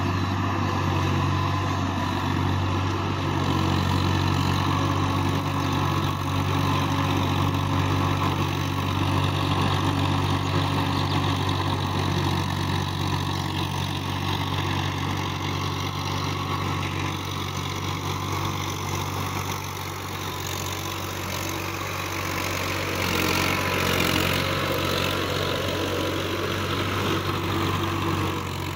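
Swaraj 855 FE tractor's three-cylinder diesel engine running steadily as it pulls a rotary tiller through a flooded, muddy paddy field, with a hissing churn of mud and water that swells for a few seconds near the end.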